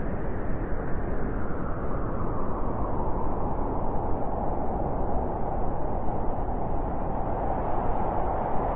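Blizzard wind blowing steadily, a deep rushing with a howling note that slides a little lower in pitch over the first few seconds and then holds.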